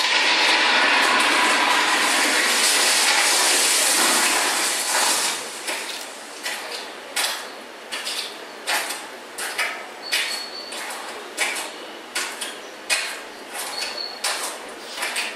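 Runway-show soundtrack of industrial sound design: a loud rush of noise for about five seconds, then a run of sharp clanking knocks, irregular at about one to two a second, with a short metallic ring twice near the end.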